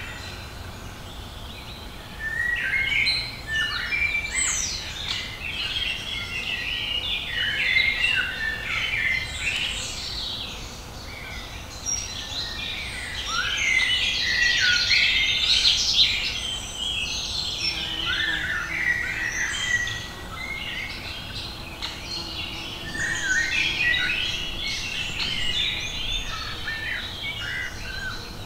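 Several songbirds singing together, a dense tangle of chirps and warbled phrases that starts about two seconds in and eases briefly a couple of times, over a faint low rumble.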